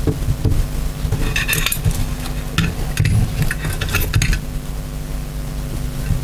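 Small metal carburettor parts and hand tools clinking and scraping as screws are worked into a Quadrajet carburettor: a flurry of light metallic clicks about a second in and again around three to four seconds in, over a steady low hum.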